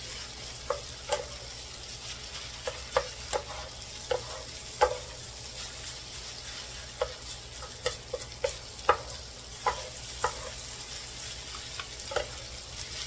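Two wooden spatulas stirring and tossing fried rice in a nonstick electric skillet: irregular scrapes and knocks of wood on the pan over a steady frying sizzle.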